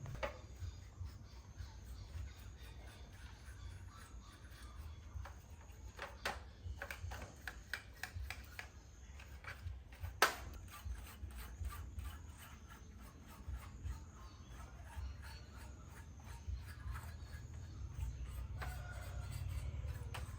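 Irregular small clicks, taps and rubbing from hands working on small parts, with one sharper click about ten seconds in, over a steady low hum.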